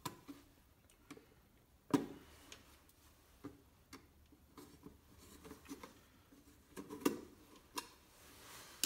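Faint, scattered clicks and knocks of hands and parts being handled, with a sharper knock about two seconds in and another about seven seconds in.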